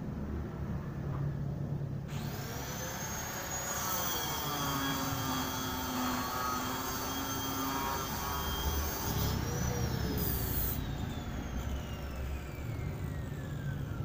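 Angle grinder starting up about two seconds in and cutting into iron rod, its high whine sagging in pitch under load. A little before the middle it is lifted off and switched off, and the whine falls steadily in pitch as the disc spins down.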